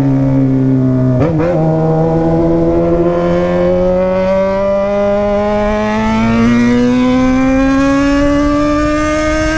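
Yamaha XJ6 inline-four motorcycle engine through a straight-through 3-inch stainless exhaust with no muffler, accelerating hard. There is a brief break in the engine note about a second in, like a gear change, and then the revs climb steadily and unbroken for the rest.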